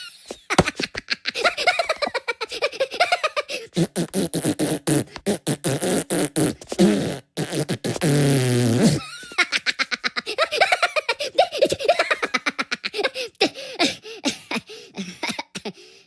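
Cartoon Minion voices babbling and giggling, mixed with fart-like sound effects. They are chopped and repeated in rapid stuttering bursts.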